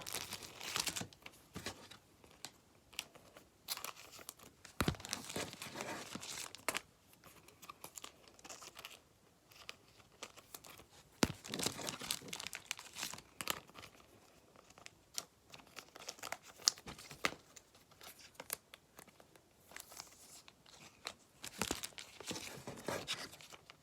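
Thin plastic penny sleeves crinkling and rustling on and off as baseball cards are slid into them, with a few sharp light clicks from handling the cards.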